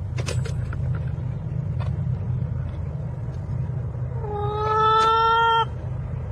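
A cat giving one long, drawn-out meow about four seconds in, rising slightly in pitch, over a steady low rumble.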